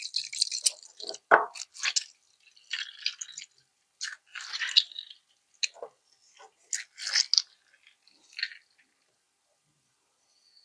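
Boiled flaxseed squeezed by hand inside a cloth strainer, with its thick gel pressed out into a bowl: irregular short wet squelches and fabric rustles with brief pauses between squeezes.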